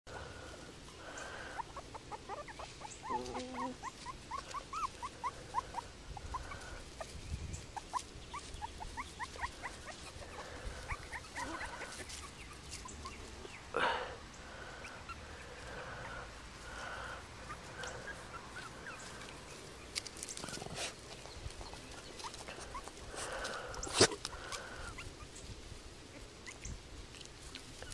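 Papillon puppies whimpering and squeaking in repeated short, high calls, with a couple of brief knocks, one about halfway through and one near the end.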